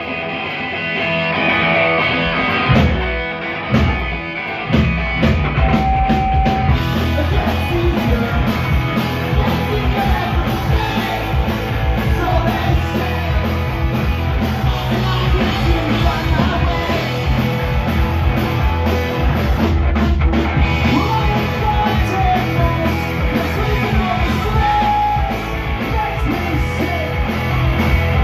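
Live punk rock band playing loud: distorted electric guitars, bass guitar and drum kit through amplifiers.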